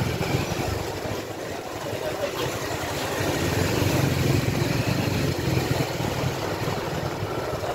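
A small engine running steadily with a low rumble, amid the general noise of a busy market street.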